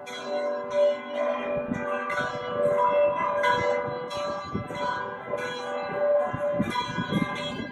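Church bells of the Cathedral of the Assumption's bell tower ringing a rapid peal. Several bells are struck over and over, about two or three strikes a second, their tones overlapping and ringing on.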